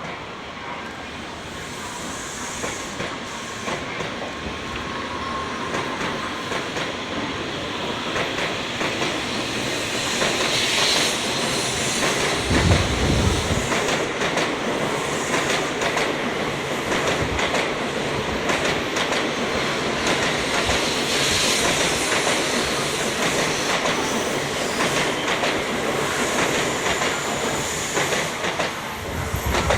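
JR Central N700 series Shinkansen train pulling out and gathering speed past the platform, its wheels clattering over rail joints and points. The sound grows louder over the first ten seconds or so, then holds steady.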